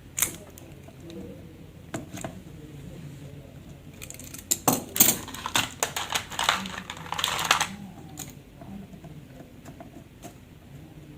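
Plastic prying tool and phone being handled: a few sharp clicks, then a dense run of clicking and scraping for about three seconds as the tool works along the edge of a Samsung Galaxy A70's housing.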